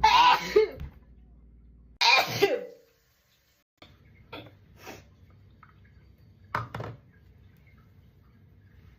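A person sneezing twice in quick succession, each sneeze a loud burst with a falling voiced 'choo', followed by a few soft short sounds.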